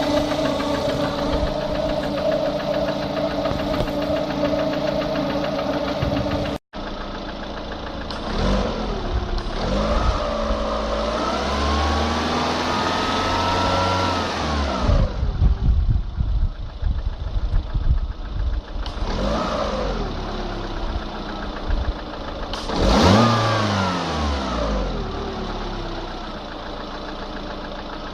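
Lada Kalina engine running with a knock. It runs steadily at first, then after a brief break is revved several times: a short rev, a longer one held for a few seconds, and two more quick blips.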